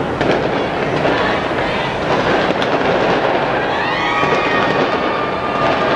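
Fireworks display: a continuous dense crackling and rumbling of many shells bursting. About two-thirds of the way through, a rising whistle-like tone appears and then holds steady for a second or two.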